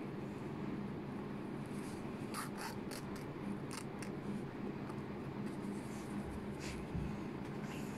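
Embroidery needle and metallic thread pulled through felt while hand-stitching a chain stitch: several short scratchy pulls, a quick run of them a little over two seconds in, another soon after and two more near the end. A steady low hum sits underneath.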